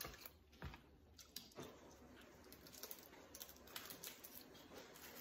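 Faint, scattered clicks and crackles of crab shell being broken and picked apart by gloved hands.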